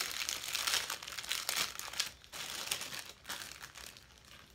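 Plastic packaging crinkling and rustling in the hands as an item is unwrapped, in irregular crackles that die down near the end.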